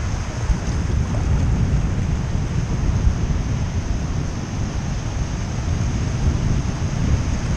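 Wind buffeting the microphone as a steady low rumble, over the wash of small surf waves around a kayak in shallow water.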